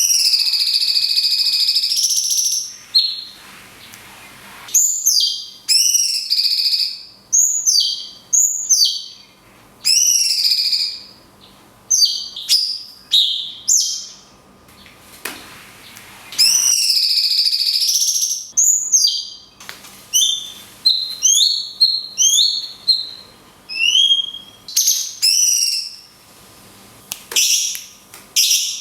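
Cucak cungkok (brown-cheeked bulbul) singing its 'kunti' shot song. Long, loud whistled notes, one at the start and another about halfway through, alternate with quick runs of short sweeping chirps, with brief pauses between phrases.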